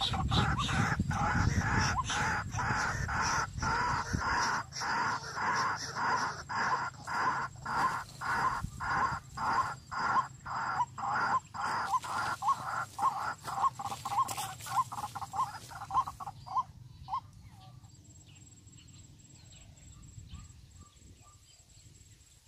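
A bird giving a long series of loud, evenly repeated calls, about two a second, that die away about seventeen seconds in.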